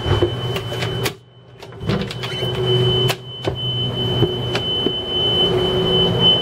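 Yanmar diesel's low oil pressure alarm sounding one steady high-pitched tone. The engine is stopped with the key still on, so there is no oil pressure. A few knocks and footsteps sound over it, and everything drops out briefly about a second in.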